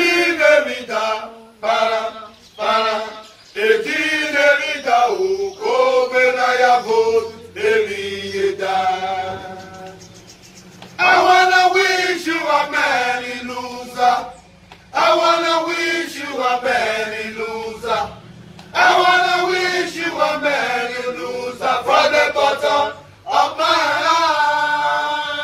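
A group of men singing together without instruments, a chant-like song in short phrases broken by brief pauses.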